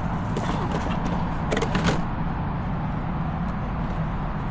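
A steady low engine rumble, with a few light clicks.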